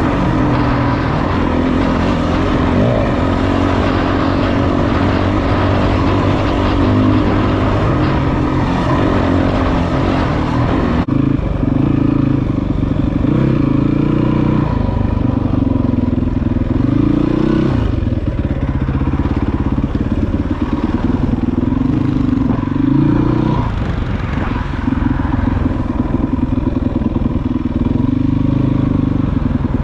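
Yamaha WR450F's single-cylinder four-stroke engine running under way, with a steady hiss over it at first. About eleven seconds in the hiss drops away, and the revs rise and fall again and again before settling to a steadier note near the end.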